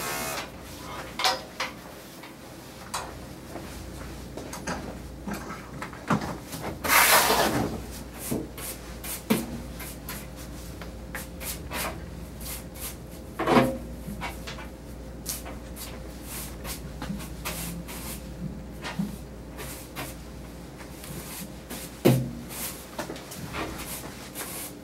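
Scattered knocks, clicks and rubbing of grooming tools and supplies being handled and set down around a grooming table, with a louder scuffing rustle about seven seconds in and sharper knocks near the middle and end. A steady low hum runs underneath.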